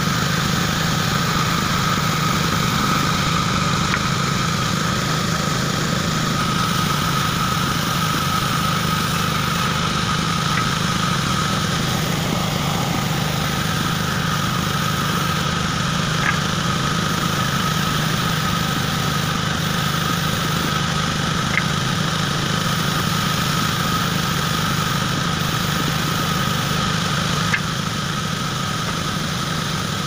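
Band saw running steadily while ripping timber into narrow strips, with a constant whine and a low hum. A few faint clicks come about every five or six seconds.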